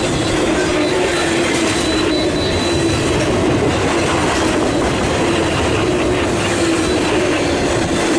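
Freight train cars rolling past with a steady, loud rolling noise and a thin squeal from the wheels.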